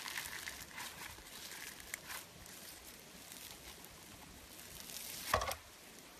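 Fluffy green slime being kneaded and squeezed by hand, making soft crackling and clicking as it is worked, with one louder squish about five seconds in.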